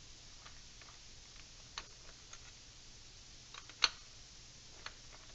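A few light clicks and taps of a Kreg pocket-hole jig and its bits being handled, with one sharper click a little under four seconds in, over a faint low hum.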